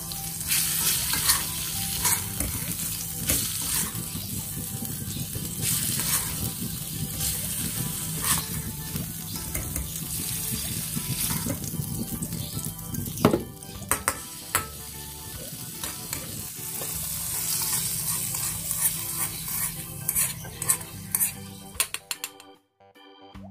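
Oil sizzling in a miniature wok while a small metal spoon scrapes and clinks against the pan, scooping out chili-sauced chicken hearts. The sizzle cuts off suddenly near the end.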